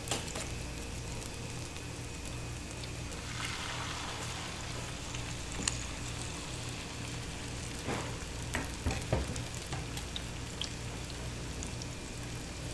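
Beaten egg mixed with chopped vegetables sizzling steadily on a hot, oiled electric griddle. A few short clinks of a metal ladle against a steel tray come about halfway through and again near the end.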